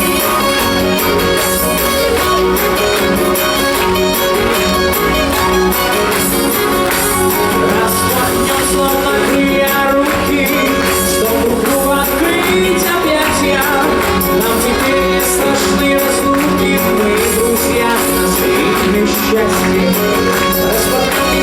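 Show music playing loudly and steadily, with sharp percussion strokes running through it.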